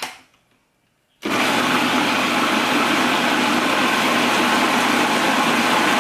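Food processor switched on about a second in and running steadily at a constant speed, puréeing whole canned plum tomatoes in their juice.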